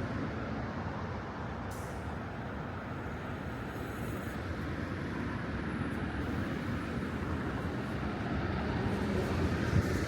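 Steady city street noise: a low, even rumble of road traffic, with a brief thump near the end.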